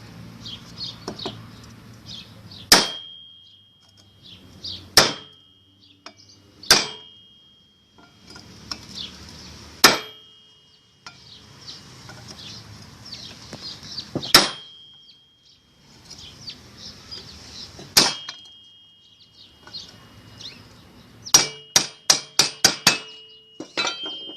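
Hammer blows driving a ball bearing into the washing machine tub's bearing housing through a driver piece that fits the bearing's edge, each blow ringing briefly. Single blows come a few seconds apart, then a quick run of about eight near the end.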